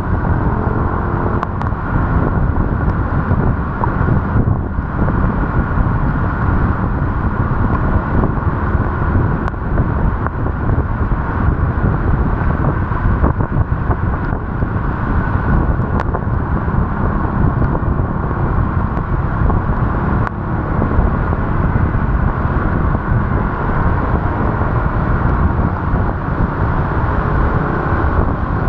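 Steady, loud wind and road noise from a vehicle being ridden through heavy rain, dominated by a low rumble, with a few faint sharp ticks scattered through it.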